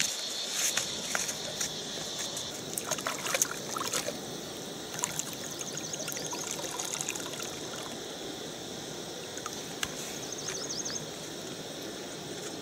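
Shallow stream water trickling over rock, with scattered clicks and rustles from a banana leaf and a plastic bottle being handled. Two short runs of quick high chirps, about five and ten seconds in.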